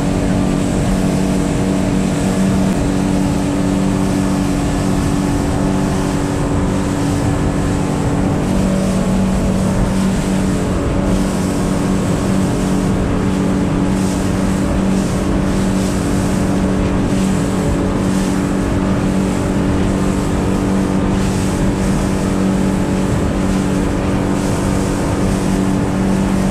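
A 200 HP Mercury outboard running steadily at speed with the boat on plane, its drone under a constant hiss of water and spray off the hull. One of the engine tones fades about eight seconds in.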